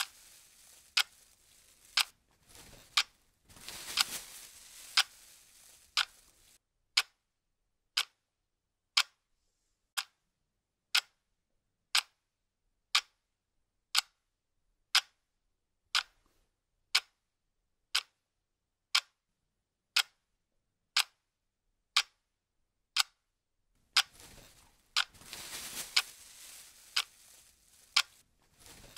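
Clock ticking steadily, one tick a second. Over the first six seconds and again over the last five, a rustling hiss runs under the ticks.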